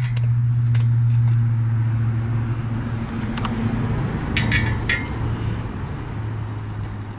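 Small steel seat-base bolts clinking against each other and against the metal seat frame as they are unscrewed by hand, with a quick cluster of clinks about four and a half seconds in. A steady low hum runs underneath throughout.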